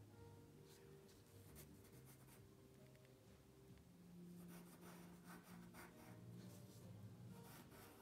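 Faint scratching of a graphite pencil on paper as a drawing is sketched: a few separate strokes at first, then a quick run of short strokes from about halfway through to near the end.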